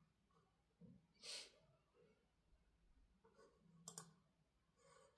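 Near silence with faint clicks from a laptop being used, the sharpest a close pair about four seconds in, and a brief soft hiss about a second in.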